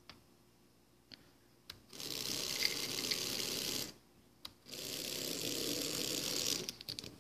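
Stepper motor driven by a CNC Shield V4 buzzing with a rough, hissy noise in two runs of about two seconds each, with a short break between, as it fails to move properly. The owner puts this down to too fast a feed rate for the board at 12 volts. A few faint clicks come before the first run.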